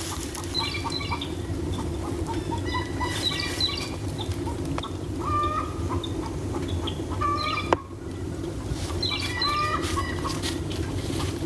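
Steady low rush of a homemade wood-fired maple sap evaporator, the fire burning hot under a pan of boiling sap. Birds call in short clusters of chirps throughout, and there is a single sharp click a little past halfway.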